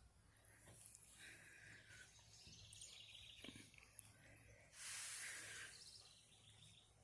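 Quiet outdoor ambience with faint bird chirps, broken about five seconds in by a short burst of hiss lasting under a second.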